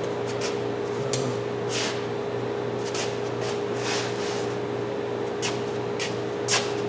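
Clamps clacking as they are set into a wooden wall rack: about eight short, sharp knocks spread irregularly, over a steady mechanical hum.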